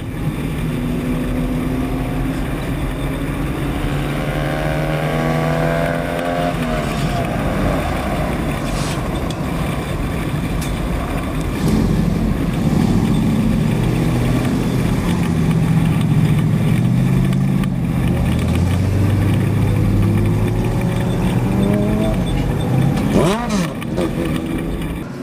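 Race truck's engine at full run around a dirt oval, rising in pitch as it speeds up along a straight and dropping as it backs off, several times over, then winding down near the end.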